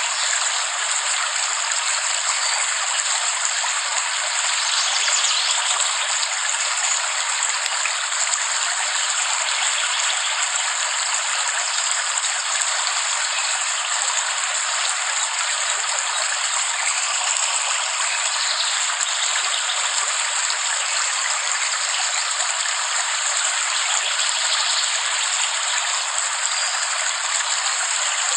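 Steady heavy rain as a continuous, even hiss with no distinct drops or thunder standing out.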